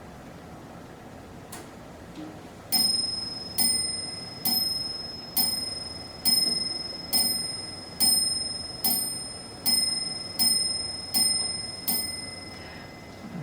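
Antique French mantel clock striking twelve on its small bell: twelve bright rings a little under a second apart, each ringing on and fading before the next. Two faint clicks come just before the first strike.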